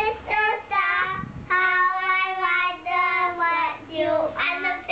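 A young girl singing, with several held notes.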